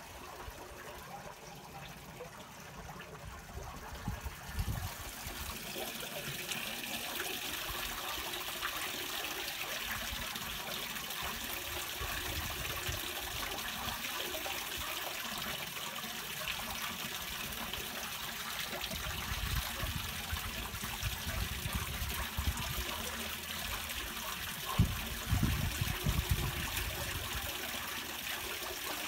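Gutter water trickling and splashing down through a cast-iron storm drain grate, a steady rushing that grows louder about six seconds in. A few low thumps and rumbles come in the last third.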